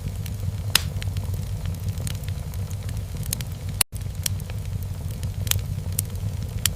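Wood fire burning in a fireplace: a steady low rumble with scattered sharp crackles and pops. A loud pop comes about a second in, and several more come in the second half. The whole sound cuts out for an instant near the middle.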